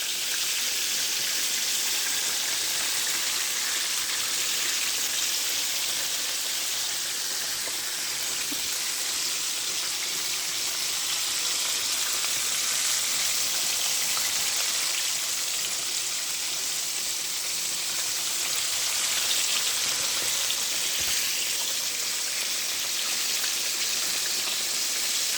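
Chicken pieces frying in hot oil in a pan: a steady, even sizzle with no break.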